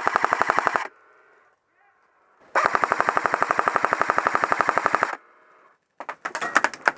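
Airsoft electric gun firing on full auto in long bursts of very rapid, even shots. One burst stops about a second in, and a second one runs from about two and a half to five seconds. Scattered, irregular sharp snaps follow near the end.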